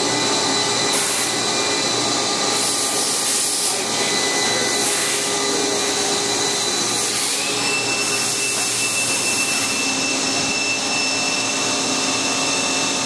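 Live-tooling milling motor of a Haas SL-30TBB CNC lathe running steadily at about 2,000 RPM: a constant whine over machine hiss. About halfway through, the pitch of the whine shifts.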